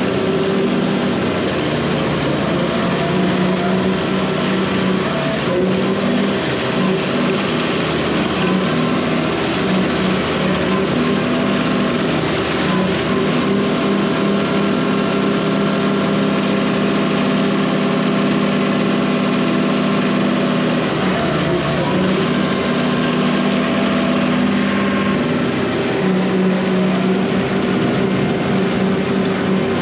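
Tractor engine running steadily under load while bush hogging, its pitch dipping briefly about two-thirds of the way through and then recovering.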